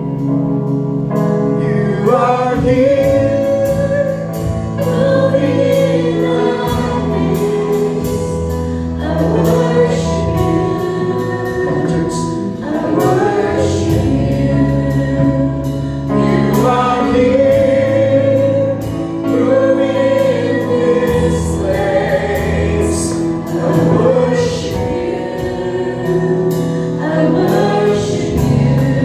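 A group of voices singing a gospel worship song over instrumental accompaniment with held bass notes.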